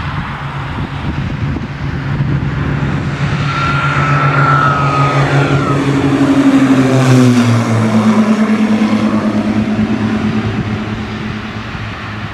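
Piper PA-34 Seneca II's twin turbocharged Continental six-cylinder engines at takeoff power as it lifts off and climbs past. The sound grows louder, the pitch drops as it passes overhead about seven seconds in, then it fades as the plane climbs away.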